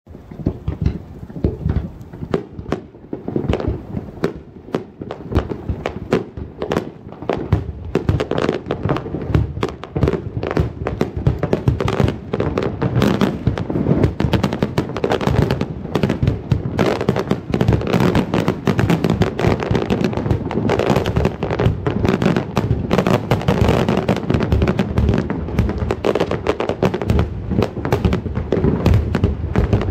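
A fireworks display: shells launching and bursting in a rapid barrage of cracks and bangs with rolling echoes. A few separate bangs at first, then an almost unbroken barrage from about eight seconds in.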